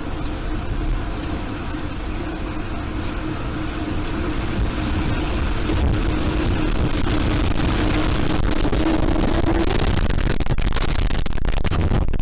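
Tornado winds rushing and roaring, building in loudness over the first several seconds and then holding loud, with a steady droning tone underneath that stops about ten seconds in. Near the end the sound breaks up in brief dropouts.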